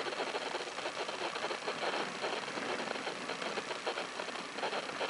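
Dog sled runners hissing and scraping over snow with a fast, steady clatter as the team pulls the sled along.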